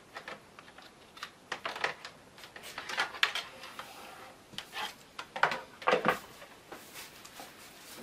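Laptop power cords and a plastic AC adapter brick being handled and plugged in: irregular clicks, taps and rattles of plastic and cable, loudest about five to six seconds in.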